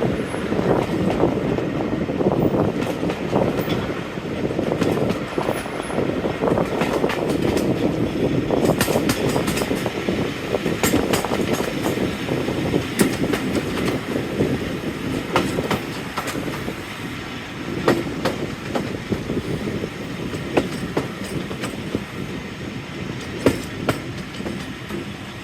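Train running along the line: a steady rumble of wheels on rail, with scattered sharp clicks, most of them after the first few seconds.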